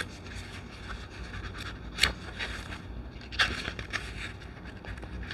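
Tarot cards being handled: a soft sliding and rustling of card stock, with two sharp card snaps about two seconds in and again about a second and a half later.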